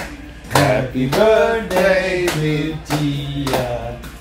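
People singing a tune together, with hand clapping in time about every half second.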